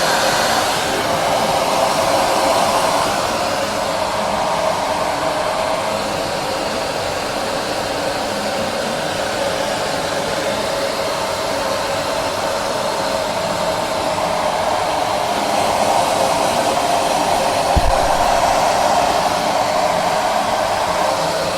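REPRONIZER hair dryer running steadily with a loud blowing hiss that swells a little twice. There is a brief low thump about eighteen seconds in.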